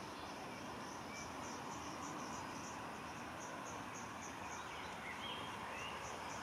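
Insect chirping in an even pulsing rhythm, about three pulses a second, over a steady low background rush. A few faint bird chirps come in about five seconds in.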